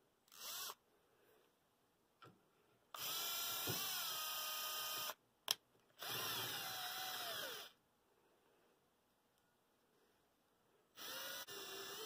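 Milwaukee cordless drill drilling the centre hole of a Baltic birch plywood gear through a drilling jig, run in short trigger bursts: a brief blip just after the start, then three runs of one to two seconds each with pauses between. During the second run the motor's pitch sags and drops.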